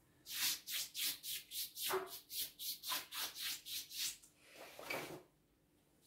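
Paperhanging brush swept quickly over freshly hung wallpaper, smoothing it onto the wall: about three short scraping strokes a second for some four seconds, then one longer stroke.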